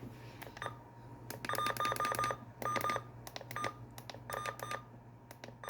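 Short electronic key beeps with clicks, in several quick clusters: weather radio buttons being pressed to mute the radios. A faint steady low hum runs underneath.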